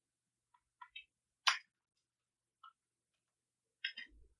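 Scattered clicks of a computer keyboard and mouse, about half a dozen, the loudest about a second and a half in, with a soft low thump near the end.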